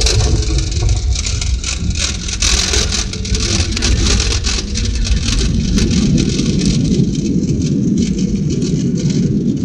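Cabin noise of an Airbus airliner on its landing roll: loud, steady rush of the turbofan engines and the wheels on the runway, with rattling in the first half. The level jumps right at the start, and a deeper engine rumble swells about halfway through.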